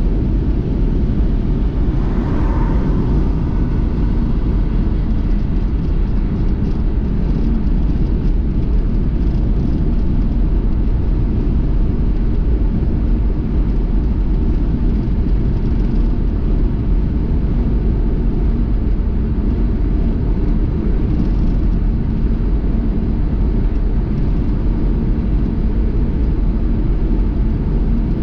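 Steady low rumble of a car driving at speed: road and engine noise at an even level, with a brief higher-pitched sound about two seconds in.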